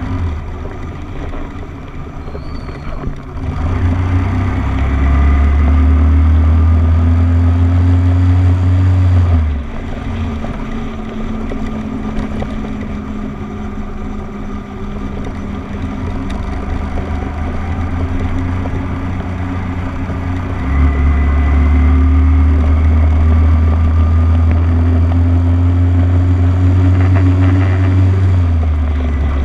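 Small motorcycle's engine running as it rides along, its pitch slowly rising and falling with speed and gear. A louder, deeper rumble sets in about four seconds in and cuts off abruptly near ten seconds, and comes again from about 21 seconds until just before the end.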